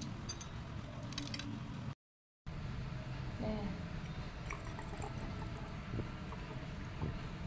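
Faint clicks and scrapes of a stick being worked into the eye hole of a husked coconut, over a steady low background hum. The sound cuts out for about half a second around two seconds in.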